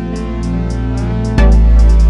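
Background music: soft sustained instrumental tones with a light ticking beat, and a heavy low drum beat coming in about one and a half seconds in.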